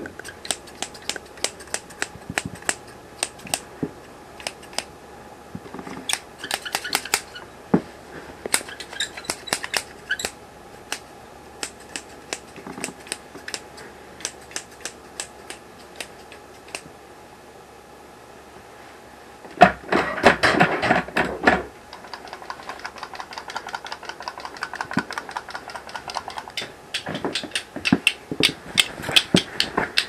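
A series of sharp, irregular clicks and ticks, with a louder burst of noise lasting about two seconds near the two-thirds point, followed by faster, denser clicking.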